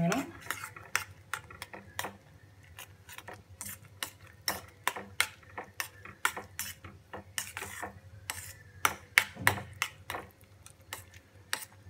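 Metal spoon clinking and scraping against a stainless steel pot while stirring instant noodles, in irregular taps several times a second.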